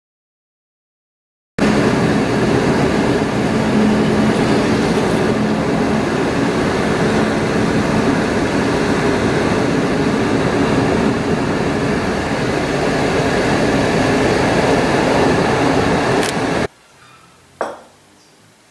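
Steady road and engine noise inside a car cruising on a motorway. It starts abruptly after a second and a half of silence and cuts off suddenly near the end, followed by a single click.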